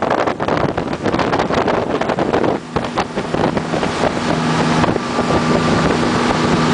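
Botnia Targa 35 motorboat under way at speed: wind buffeting the microphone over the rush of water. About two and a half seconds in, a steady engine drone comes through and holds.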